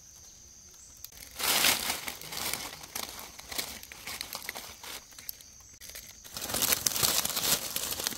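Dry fallen leaves crackling and rustling as hands push the leaf litter aside, in irregular bursts: quiet for about the first second, a lull a little past the middle, loudest near the end.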